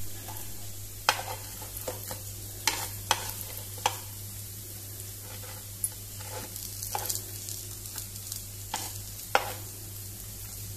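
Semolina-coated breadfruit slices shallow-frying in oil on a flat pan, sizzling steadily, while a spoon clinks and scrapes against the pan about eight times as the slices are turned over.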